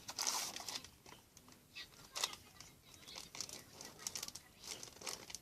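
Soft, irregular rustling and light scraping as cornstarch is poured into a glue-and-water mixture in a small container.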